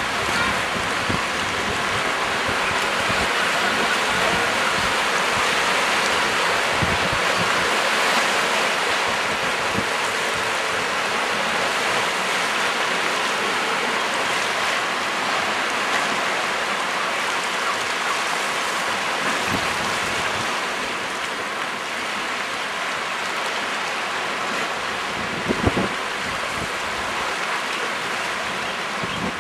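Sea surf washing over and around rocks at the shoreline: a steady rushing wash that swells and eases, with one short knock near the end.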